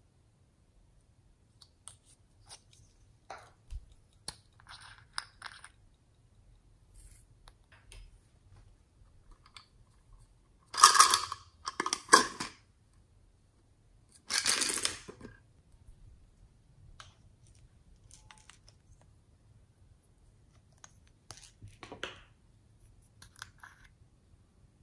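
Hands handling small plastic toy containers and decorations up close: light clicks and taps, with three louder rustling, scraping noises near the middle, each under a second.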